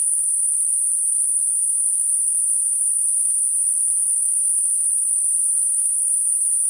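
Steady high-pitched hiss: synthetic Gaussian narrowband noise centred at 9.5 kHz and rolling off between about 7.5 and 11.5 kHz, a masking noise for high-frequency tinnitus. It holds an even level throughout, with nothing lower in pitch beneath it.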